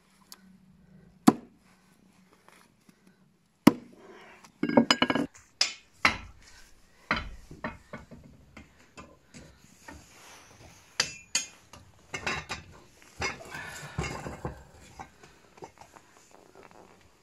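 A single sharp hatchet chop on a wooden board about a second in. Then, from about four seconds in, repeated metal clanks and scrapes as a lidded pot is shoved into a Russian masonry stove with a long iron oven fork.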